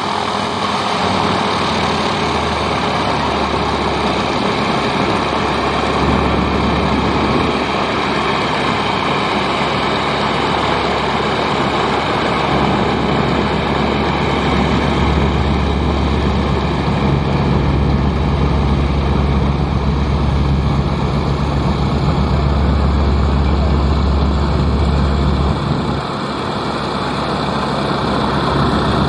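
Single-engine aerobatic propeller plane flying overhead: a steady drone of its piston engine and propeller, dipping briefly near the end.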